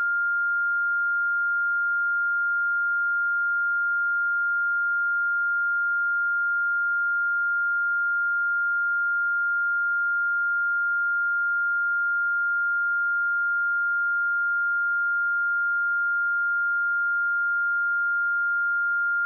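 A pure 1403 Hz sine-wave test tone, held steady at one pitch and level.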